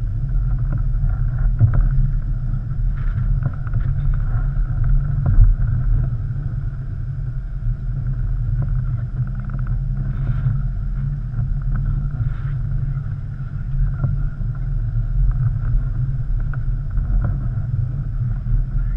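Jeep Wrangler driving slowly over a rocky dirt trail, heard from a hood-mounted camera: a steady low rumble of engine and running gear, with occasional knocks as the wheels go over rocks, the loudest about five seconds in.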